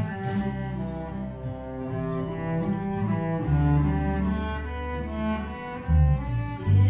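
Cello bowed in a slow melody of long held notes, with an electric bass holding long low notes underneath.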